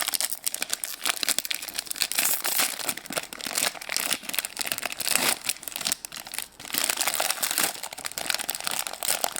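A toy's wrapper crinkling and tearing as it is handled and opened by hand, a busy irregular crackle that goes on throughout.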